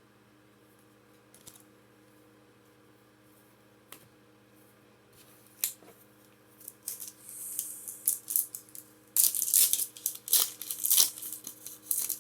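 Foil booster pack wrapper of Pokémon cards being handled and torn open: a few light clicks, then scattered crinkling that turns into a dense burst of tearing and crinkling about nine seconds in.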